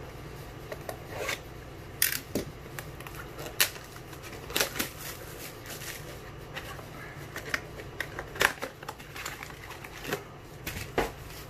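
Scattered sharp clicks and taps with light rustling from cardboard trading-card boxes and packs being handled and set down on a table. The clicks come irregularly, a few seconds apart, the loudest about two seconds in and again near eight and a half seconds.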